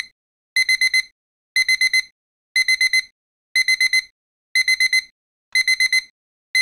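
Electronic alarm-clock beeping: high-pitched beeps in quick sets of four, repeating about once a second with short silences between.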